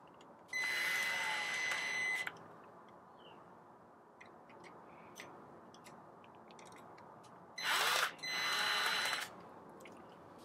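Electric screwdriver whining in two short runs, each about a second and a half, the second broken by a brief stop, as it drives Phillips screws that fasten the motor plate to the gearbox housing. Faint small clicks between the runs.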